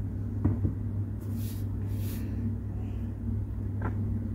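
Steady low background hum, with two light taps, one about half a second in and one near the end, and a couple of brief rustles between them from handling the tablet.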